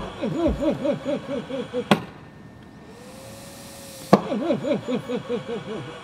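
VOCSN ventilator's built-in cough assist (mechanical insufflation-exsufflation) on a low setting, cycling through a face mask. A sharp clack marks each change of phase. The exhale pull gives about two seconds of rapidly wavering airflow tone, then comes a quieter steady tone, then a clack about four seconds in and the wavering pull again: two cough cycles.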